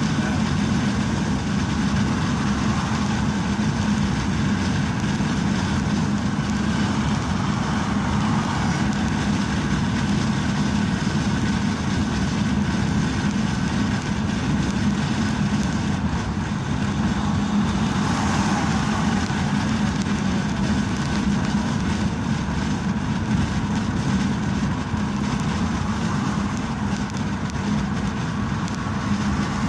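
Steady engine and tyre noise of a vehicle driving at highway speed, with an even low hum.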